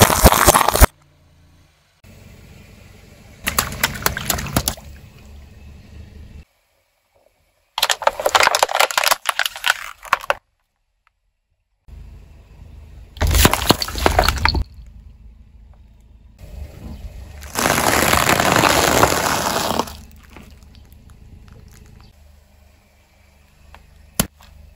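Objects being crushed under a car's tyre: five separate bursts of crackling and crunching, each one to two and a half seconds long, with abrupt cuts between them and a low rumble in some of the gaps.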